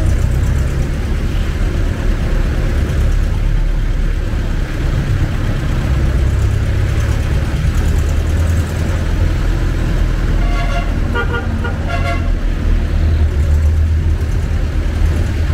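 Jeepney engine running with a steady low rumble and road noise, heard from inside the moving jeepney. About ten seconds in, a vehicle horn gives a quick run of short toots.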